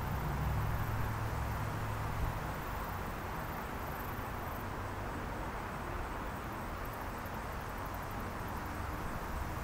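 Steady outdoor ambience: an even hiss of wind and distant traffic, with a low rumble in the first two seconds or so.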